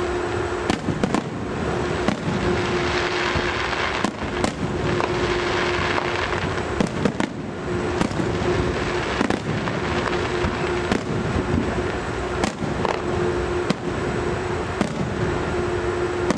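Fireworks display going off: a dense run of bangs and crackling bursts, one after another, over a steady low hum that comes and goes.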